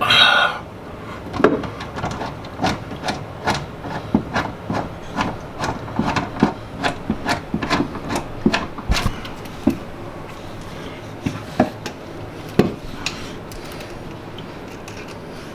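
Hand-tool work on metal parts: a brief scrape at the start, then a string of irregular sharp taps and knocks, two or three a second, thinning out toward the end.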